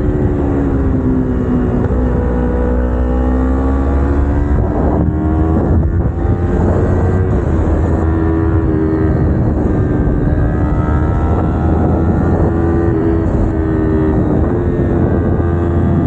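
Kawasaki Ninja 250R's parallel-twin engine running under way on the road. The revs ease off a second or so in, climb back within a few seconds and hold steady, then dip briefly near the end and pick up again.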